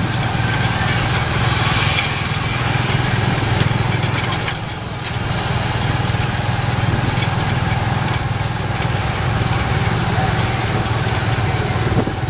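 Small motorcycle engine pulling a tuk tuk carriage, running steadily under way with road and traffic noise. The sound dips briefly about five seconds in.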